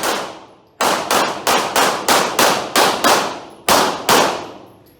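Pistol shots fired in rapid strings: a run of about eight shots at roughly three a second, a brief pause, then two more, each shot with a short ringing tail.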